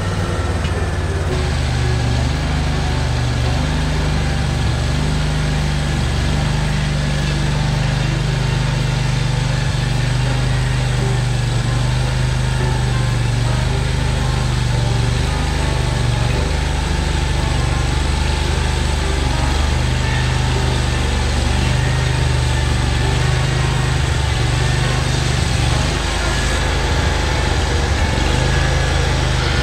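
The engine of a Hud-Son Oscar 336 band sawmill running steadily as the saw head travels along the log. The owner says the engine isn't running well, running rough.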